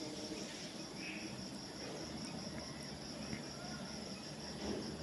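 Faint background noise on a voice-over microphone between narrated steps: steady hiss and a low hum, with a high, evenly pulsing chirp like insects throughout.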